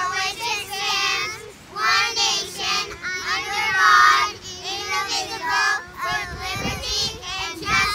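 A high-pitched singing voice, with quickly gliding, broken notes.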